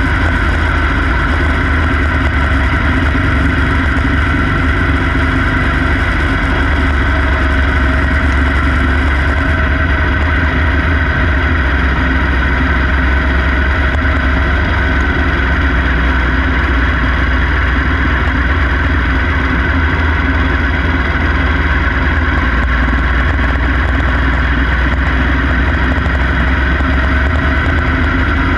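Quarter midget race car's small single-cylinder engine running steadily at racing speed, heard up close from on board the car, with a heavy low rumble underneath.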